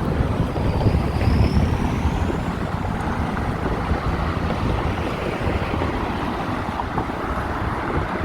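Steady road traffic noise of cars and trucks, with wind buffeting the microphone of a moving bicycle. A faint high whine rises and then falls during the first few seconds.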